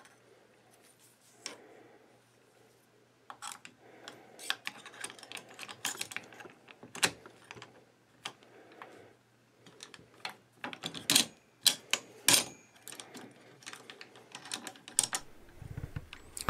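Metallic clicking and rattling of a belt of dummy .308 cartridges in disintegrating metal links being handled and laid into the feed tray of a Browning M1919A4 machine gun. There are several sharper clacks as the gun's top cover is opened. It starts about three seconds in, after a near-silent start.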